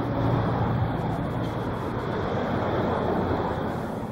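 Road traffic: cars driving past, a steady rush of tyre and engine noise with a low engine hum in the first second.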